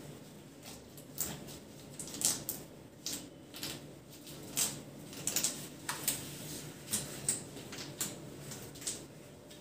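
A cotton bed sheet being tucked under the mattress edge by gloved hands: irregular short rustles and scrapes of cloth, about one or two a second.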